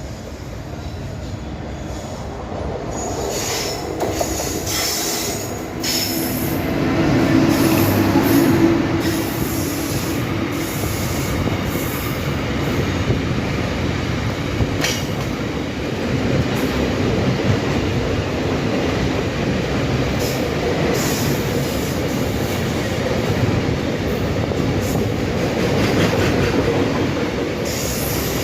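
Container goods train hauled by a WAG-9HC electric locomotive rolling past as it departs, growing louder over the first several seconds and then holding steady. Sharp clicks of wheels on rail joints come through now and then.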